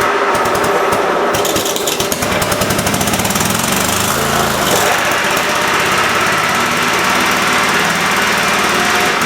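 Cub Cadet 3225 lawn tractor's 22 hp Kohler engine running, with a brief change in engine speed about four to five seconds in. The engine has a fault the owner describes as running well for a minute, then acting starved of fuel, which he first suspects is the fuel solenoid.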